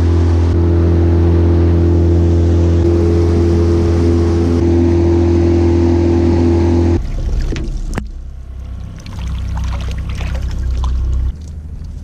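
Boat's outboard motor running steadily at speed, a loud even drone that cuts off abruptly about seven seconds in. After it comes a quieter, uneven low rumble with one sharp click.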